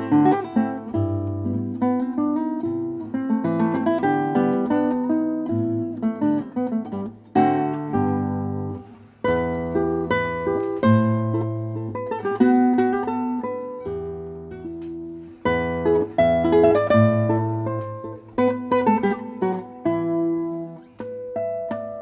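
A 1913 Hermann Hauser I classical guitar played solo fingerstyle: plucked melody notes over bass notes, with a short pause about nine seconds in.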